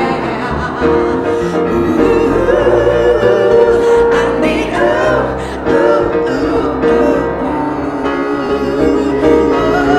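Live music: a woman singing with wavering, bending pitch into a microphone, accompanied by piano and electric bass.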